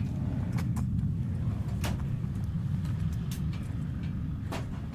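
Steady low rumble on an aircraft flightline, broken by five or six sharp clicks and knocks as the pilot handles his flight gear at the metal cockpit boarding ladder.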